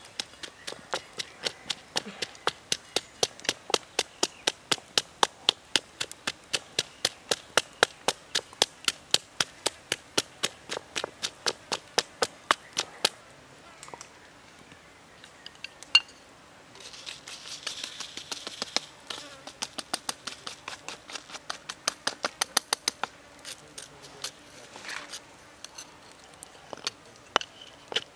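Wooden pestle pounding chillies and herbs in a stone mortar: sharp, steady knocks about four a second. The pounding stops for a few seconds about halfway through, with a short rustle, then starts again.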